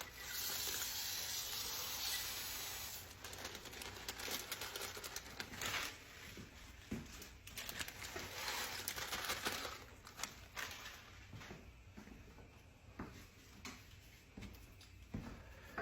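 Dry brown rice poured from a bag into a pot of broth: a steady hiss of grains for about three seconds, then scattered patter and taps as the last of it is shaken out.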